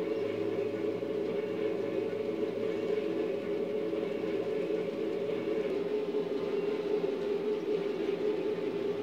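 N-scale model trains running on the layout: a steady motor whir and rolling hum with a faint rhythmic pulse, which shifts slightly about six seconds in.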